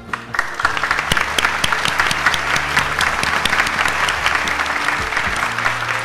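Large indoor audience applauding, a dense, steady clatter of many hands clapping that starts at once. Quiet background music with steady low notes plays beneath it.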